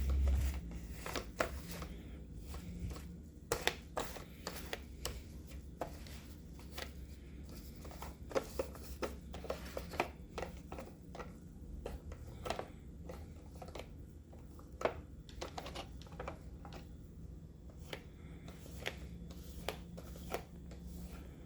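Plastic Roomba parts being wiped and handled with a damp paper napkin: irregular small rubs, clicks and taps, with a dull thump right at the start and a faint low hum underneath.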